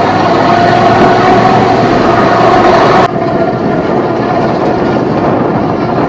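Off-road vehicle engine and drivetrain running steadily under load, heard from on board, with a held whine over a rough rumble. About three seconds in the sound changes abruptly to a plain noisy rumble of the ride without the whine.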